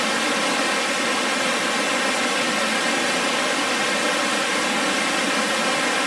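Steady, even rush of water from a cascading three-tiered waterfall.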